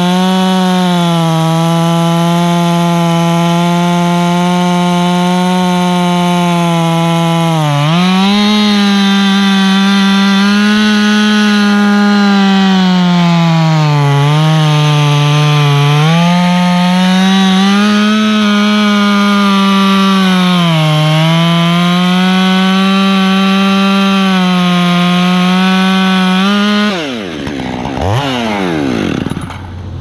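Gas chainsaw at full throttle cutting through a pine trunk. Its pitch sags briefly under load a few times as the chain bites. Near the end the throttle is let off and the engine drops toward idle, with one quick rev.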